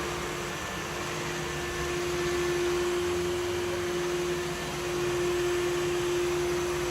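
Samsung VR20M7070WD robot vacuum cleaner running: a steady motor hum with a constant mid-pitched whine, and a low rumble that comes and goes.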